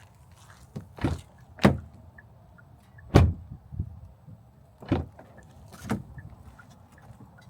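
A series of about six sharp knocks and thumps at irregular intervals, the loudest a little after three seconds in, over a faint steady background.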